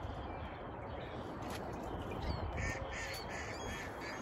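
A bird calling outdoors: a quick run of about four short, harsh calls a little past the middle, over a steady low rumble of background noise.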